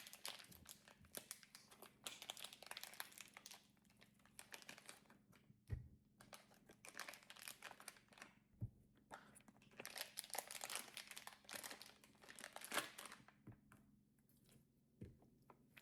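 Faint crinkling of a plastic slime pouch being handled, in scattered runs of small crackles, densest about two to four seconds in and again from about ten to thirteen seconds in.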